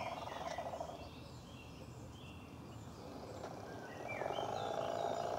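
The small electric motor and gear drive of a battery-powered 45 mm gauge model diesel locomotive running, then stopping about a second in. It starts running again about four seconds in. Birds chirp throughout, and they are clearest in the quiet pause.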